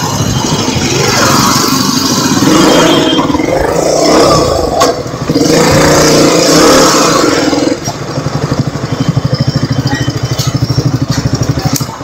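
KTM Duke 125's single-cylinder engine running as the bike rides slowly along the street, then idling with a fast, even pulse from about eight seconds in.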